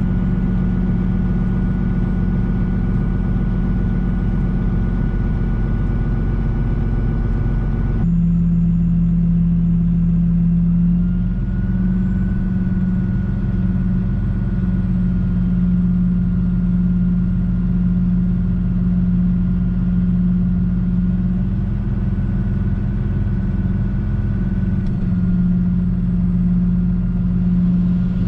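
Kenworth T880 dump truck's diesel engine running steadily, heard inside the cab, while the dump body is being raised with the hoist control. Its pitch drops suddenly about eight seconds in, then climbs slightly a few seconds later and holds.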